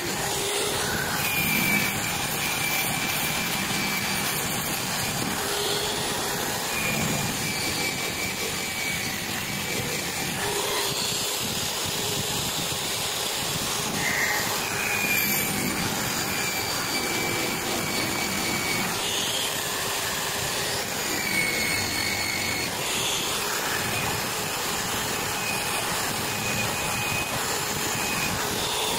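Small handheld rotary tool spinning a wire brush wheel against the toothed steel blade of an electric animal hair clipper, scrubbing it clean. A steady whirr, with a higher whine that comes and goes several times.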